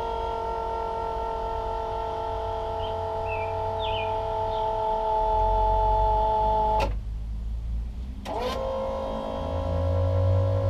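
Bennett V351 trim tab hydraulic power unit's 12-volt pump motor running with a steady whine as it drives the trim tabs. It cuts off with a click about seven seconds in, then starts again with a click about a second and a half later, rising briefly in pitch as it spins up.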